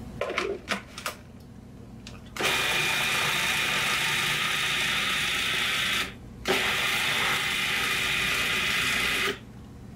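Food processor running, blending fish surimi, tofu and egg into a smooth paste. It runs in two spells of about three and a half and three seconds with a short stop between, after a few clicks as the lid and pusher are fitted.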